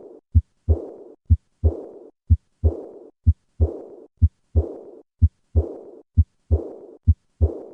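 Heart sounds through a stethoscope at about one beat a second: a sharp first sound, then a second sound followed by a blowing murmur that fades away. This is the high-pitched diastolic decrescendo murmur of aortic regurgitation, here heard at the lower right of the sternum, where it suggests aortic root disease such as an aortic aneurysm.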